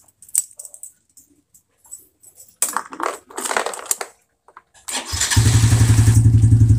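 A few handling clicks and rustles, then about five seconds in the Yamaha Sidekick 115 motorcycle's engine is started, catches almost at once and runs with a steady, even beat.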